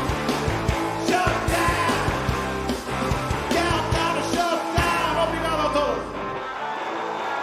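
Live rock band playing loud and fast: pounding drums, distorted electric guitars and shouted vocals. The drums stop about four and a half seconds in, and the song ends on a held final chord that rings out and fades.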